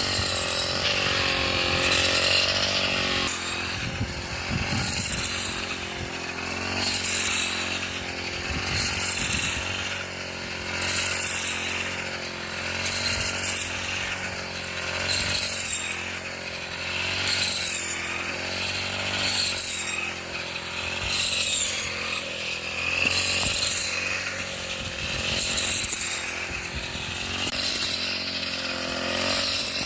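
Small engine-driven wheat threshing machine running steadily. Its sound swells and eases about every two seconds, with a rasping burst at each swell.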